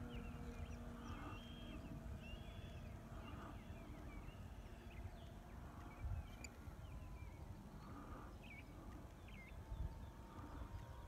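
Wind buffeting the microphone, with birds chirping now and then and the faint steady hum of a distant radio-controlled model plane's motor, which fades out about six seconds in.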